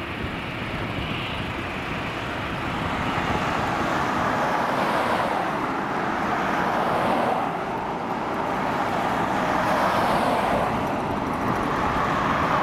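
Road traffic: vehicles passing on the road alongside, a steady rush of tyre and engine noise that swells and fades several times.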